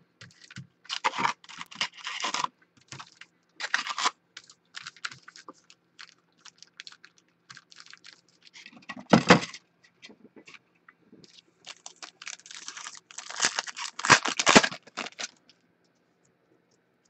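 Foil trading-card pack wrappers and a cardboard card box being handled: crinkling and rustling in short bursts as packs are pulled out and torn open. The loudest rustling comes about nine seconds in and again from about twelve to fifteen seconds.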